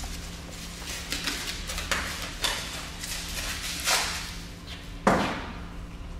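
Scattered light knocks and handling noises, with one louder thump about five seconds in, over a steady low hum.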